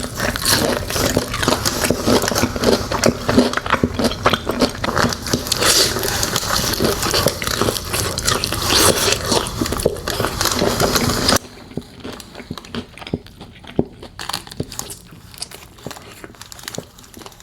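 Close-miked biting and chewing of crispy sauced chicken wings: a dense run of crunches and wet crackles. About eleven seconds in it drops suddenly to quieter, sparser chewing clicks.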